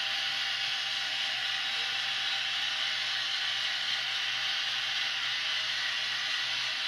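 Sound-equipped model WDG-4 diesel locomotive running along the track, giving a steady engine sound with a strong hiss over it.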